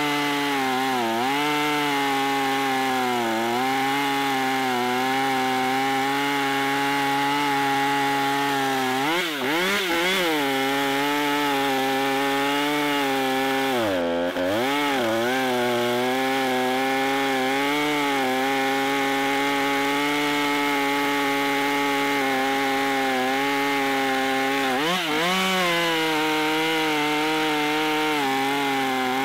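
Husqvarna two-stroke gas chainsaw running at full throttle while cutting through a dense lodgepole pine log. The engine pitch holds steady under load, dipping briefly several times as the chain bites, most deeply about 9 and 14 seconds in.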